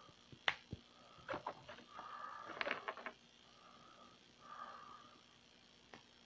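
Faint plastic clicks and small snaps as a hand is worked onto the ball-jointed wrist of an Ennard action figure: a few scattered clicks in the first three seconds and one more near the end. Soft breathing can be heard between them.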